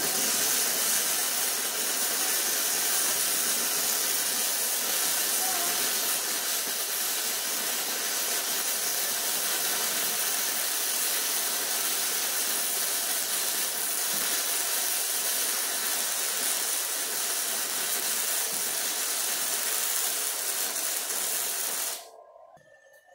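AWT MIG-100 handheld flux-core welder laying a bead, the arc running with a steady, continuous hiss that cuts off suddenly about a second before the end.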